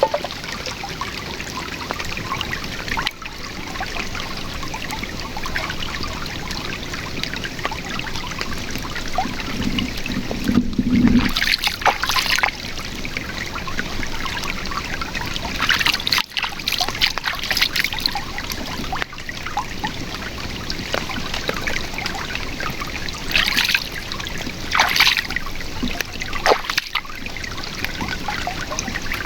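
Shallow river running steadily, a continuous trickling babble of water, with a few brief louder sounds standing out about a third of the way in, again past the middle, and near the end.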